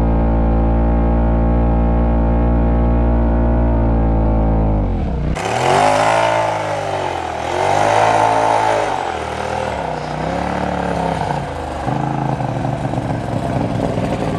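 Side-by-side UTV engine running under way, first at a steady pitch and muffled, then after an abrupt change about five seconds in, brighter, its revs falling and rising several times before settling.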